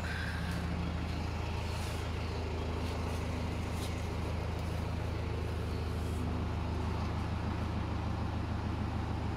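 A vehicle engine running steadily at idle: a low, even drone that does not change, with a few faint clicks over it.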